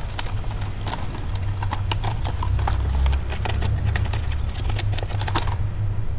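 Plastic packaging crackling and clicking as an LED fog-lamp bulb is unpacked by hand: many quick irregular clicks and rustles over a steady low rumble.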